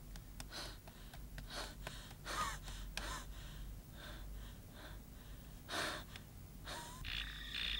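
A man breathing hard, with a series of separate audible gasps and breaths. About seven seconds in, frogs start croaking with a steady pulsing call.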